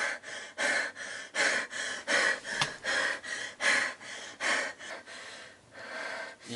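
A young woman panting hard in quick, rhythmic breaths in and out, gasping for air as she wakes with a start; the breaths grow quieter near the end.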